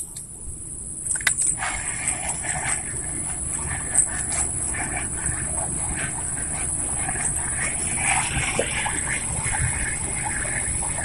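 Swamp evening chorus: insects buzzing in one steady high tone, with repeated chirping calls from other animals over it. A few sharp clicks stand out about a second in and again about four seconds in.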